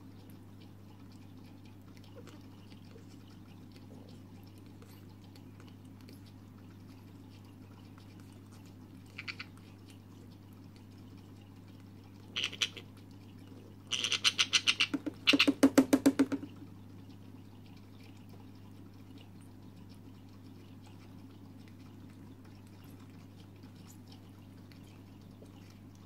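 Two-month-old Senegal parrot chick giving begging calls while being hand-fed formula from a pipette: a short call, another a few seconds later, then two loud, rapidly pulsing bursts of about a second each, over a low steady hum.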